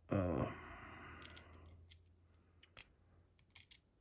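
Small metal lock pins being handled and set into a pin tray: a short rattling scrape just after the start, then a few light, sharp clicks. A brief bit of voice sounds with the first rattle.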